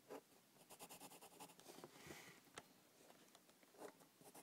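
Near silence with faint scratching and light ticks of a hand drawing on paper.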